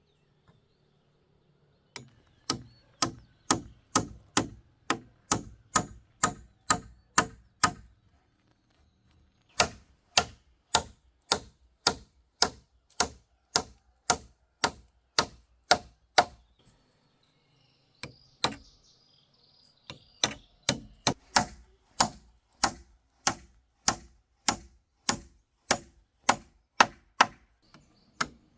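Repeated sharp chopping blows, about two or three a second, in three runs with short pauses between them.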